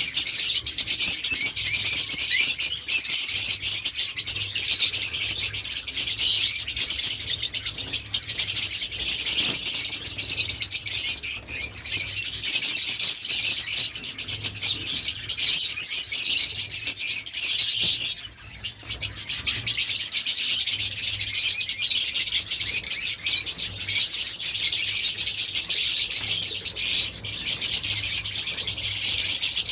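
A flock of budgerigars and lovebirds in a colony cage chattering and chirping continuously, many birds at once, with a brief lull about two-thirds through.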